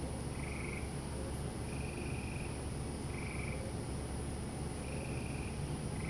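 Night chorus of frogs and insects: a steady high-pitched insect trill over a dense low chorus, with short trilled calls at two slightly different pitches coming in turn about every second or so.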